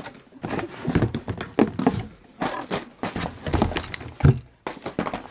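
Plastic shower-gel bottles handled in a cardboard box: a run of irregular clacks and knocks as they are lifted and bump against each other and the box, the sharpest knock a little after four seconds in.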